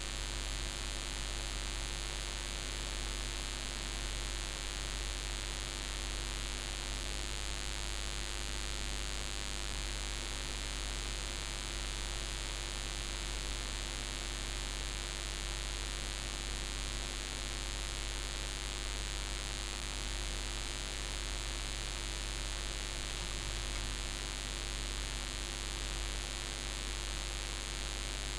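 Steady electrical hiss with a low mains hum underneath, unchanging throughout: the noise of a recording channel with no other sound on it.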